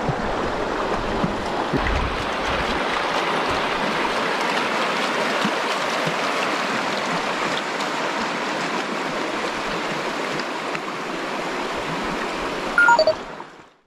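Shallow river water rushing over a rocky bed: a steady, even hiss of running water. Near the end, a brief loud high-pitched sound steps down in pitch.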